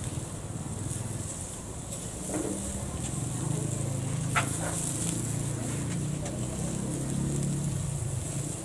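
A motor vehicle's engine running close by, swelling from about two seconds in and easing off near the end, over a steady high hiss, with one sharp click just past four seconds.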